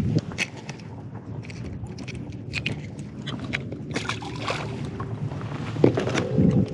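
Scattered small clicks and knocks of fishing gear being handled in a small boat, over a steady low rumble.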